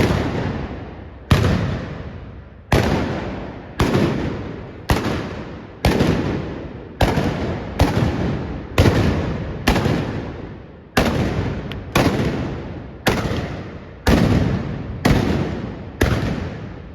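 Trabucs, Catalan black-powder blunderbusses, fired one after another about once a second, each loud blast trailing off in a long echo.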